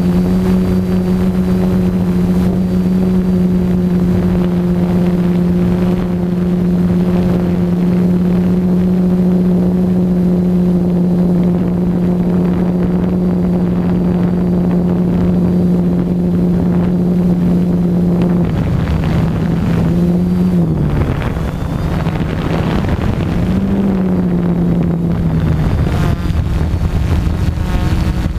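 DJI F450 quadcopter's brushless motors and propellers running at a steady pitch, with wind buffeting the onboard microphone. About two-thirds of the way through, the pitch drops, wavers, rises briefly and then settles lower as the motor speeds change in flight.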